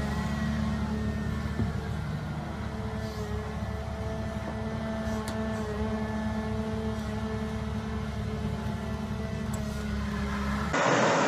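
Wheeled excavator's diesel engine running at steady revs while the machine works the bucket. Near the end it cuts abruptly to a louder rushing machine noise.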